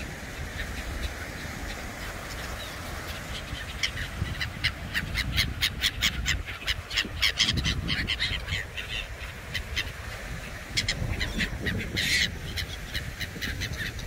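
A flock of gulls and pigeons calling in harsh, caw-like cries, with wings flapping close by, over a steady low rush of surf and wind. The calls come thickest from about four to nine seconds in and again near the end.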